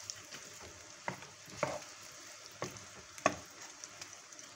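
Eggplant pieces sizzling steadily as they fry in butter in a pan, while a spatula stirs them and knocks against the pan four times, loudest about three seconds in.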